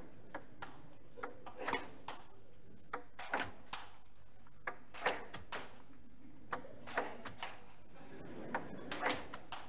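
Table tennis rally: a celluloid ball clicking off the bats and bouncing on the table, with irregular sharp clicks that often come in quick pairs of bounce and hit.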